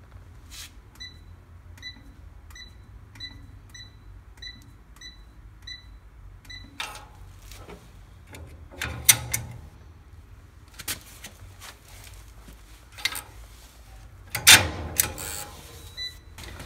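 Electronic safe-lock keypad beeping once for each key pressed, about nine evenly spaced beeps as a code is entered to test the repaired lock. These are followed by several louder clunks and rattles as the lock and boltwork are worked, and a single beep near the end.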